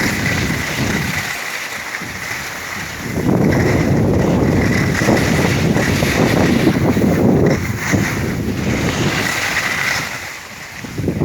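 Wind rushing over the microphone while skiing downhill, with skis sliding on the snow; louder through the middle stretch.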